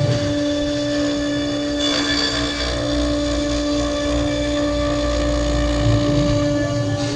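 CNC router spindle running at a steady 18,000 rpm with a steady whine, its bit cutting into end-grain larch with a continuous noisy chewing sound over a low rumble.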